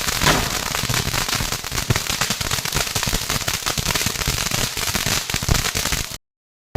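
Fireworks crackling: a loud, dense, rapid stream of pops that stops abruptly about six seconds in.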